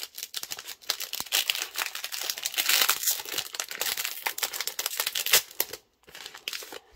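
Foil Pokémon booster pack wrapper being torn open and crinkled in the hands: a dense run of crackling, loudest midway, with a short pause about six seconds in.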